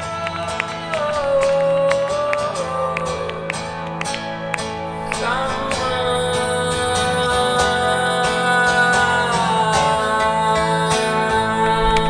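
Acoustic guitar picked by hand under a man singing long, held wordless notes that glide from pitch to pitch.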